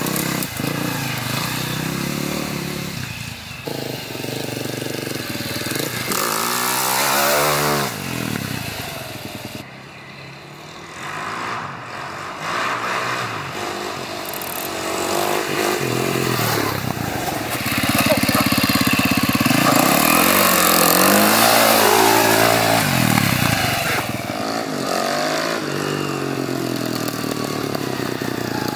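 A 2004 Husaberg 450 dirt bike's single-cylinder four-stroke engine being ridden, its revs repeatedly rising and falling as the rider works the throttle. It drops away to a quieter, distant sound about ten seconds in and is loudest when close by later on.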